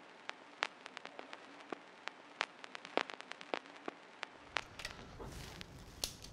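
Faint, irregular clicks and crackles, a few a second, over a soft hiss; a low rumble joins about four seconds in.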